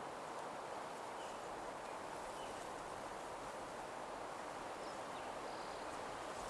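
Ambient nature soundscape: a soft, steady rustle of leaves, with a few faint, brief bird chirps.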